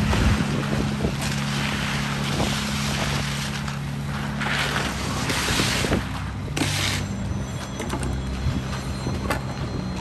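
Heavy construction machinery engine running steadily, its pitch shifting a couple of times, with several short bursts of rushing, hissing noise around the middle.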